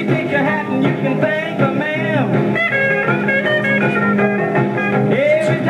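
Music from a 45 rpm record playing through the tube amplifier and woofer-and-tweeter speakers of a 1956 RCA 7-HF-45 Orthophonic record player, with its lid closed.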